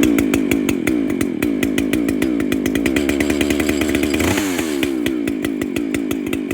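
Echo CS-7310 chainsaw with a dual-port muffler running steadily, its two-stroke engine having just caught on a cold start in freezing weather. The tone shifts about four seconds in.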